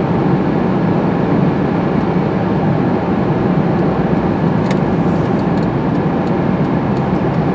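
Steady road and engine noise inside a moving car's cabin, a constant low rumble with no change in pitch.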